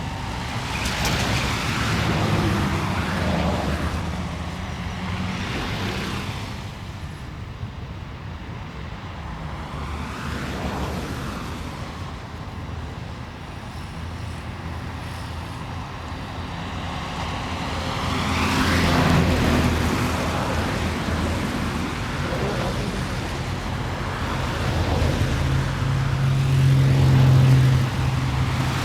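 City street traffic: a steady low rumble of engines, with cars passing by every few seconds as swells of tyre and engine noise.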